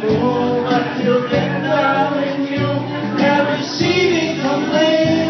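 Karaoke: a pop backing track playing over a sound system, with a man singing along into a microphone.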